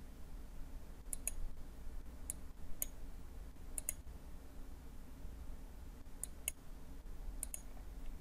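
Computer mouse button clicking: a scattering of short, sharp clicks, several in quick pairs, over a faint low hum.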